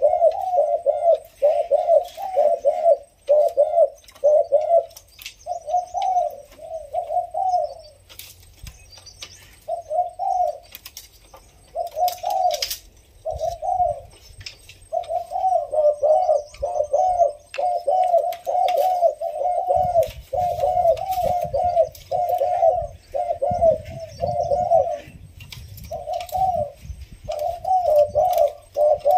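Spotted doves cooing, one coo phrase after another with only a few short pauses. It is a young decoy dove starting to answer a rival in a cooing contest. Faint clicks come from the cages.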